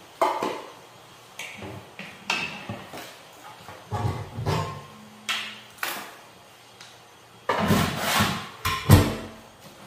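Metal cookware being handled: about a dozen irregular knocks and clinks, some ringing briefly, with a louder clatter near the end.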